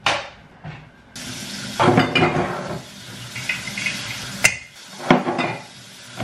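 Cooking in a pan: a steady hiss that starts sharply about a second in, with clinks and knocks of the pan and utensils, two sharp knocks near the end.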